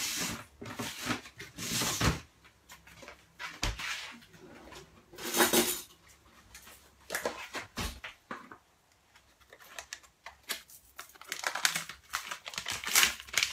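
Kitchen clatter: dishes and metal utensils knocking and scraping in scattered bursts, with a quiet pause in the middle.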